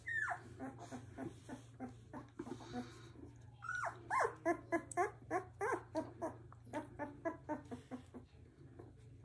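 Very young black Labrador retriever puppy whimpering as its collar is adjusted: one falling whine at the start, then from about three and a half seconds a run of short, pitched cries, about three a second, that tails off.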